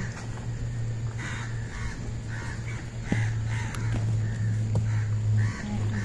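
Birds calling in a string of short, repeated calls, about one or two a second, over a steady low hum that breaks off briefly twice.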